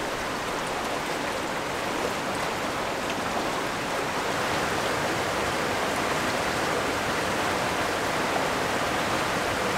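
Shallow river water rushing steadily over rocks: the River Wye flowing past the stepping stones.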